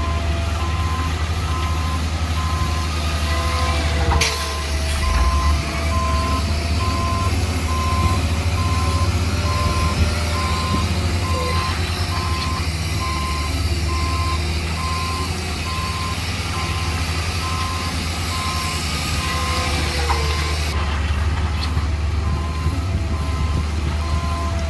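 A heavy construction machine's reversing alarm beeps steadily at one pitch over the low, steady running of its engine.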